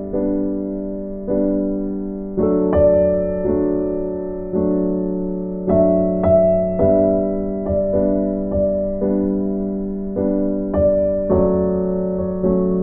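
Background music: slow keyboard piano playing held chords, a new chord struck about once a second and each fading away before the next.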